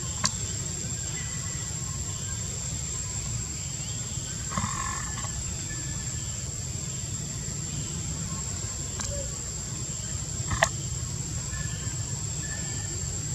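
Outdoor tree-canopy ambience: a steady high-pitched drone over a low rumble. A few sharp clicks sound near the start and again about nine and ten and a half seconds in, with a short call about four and a half seconds in and a few brief chirps.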